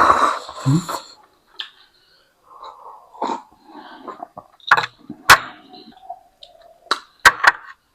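Eating noises: a few sharp clicks of utensils against dishes and soft mouth sounds of noodles being eaten.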